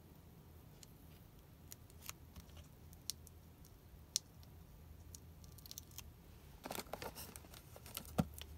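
Faint handling of paper card stock and foam tape: a few scattered small clicks, a short burst of crackly rustling, and one sharper click near the end.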